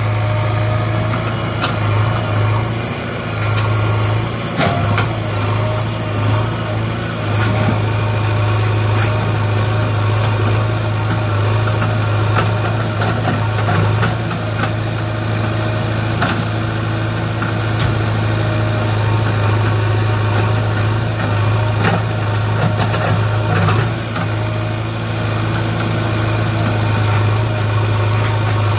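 JCB 3DX backhoe loader's 49 hp diesel engine running steadily with a deep, even hum, with scattered short knocks over it.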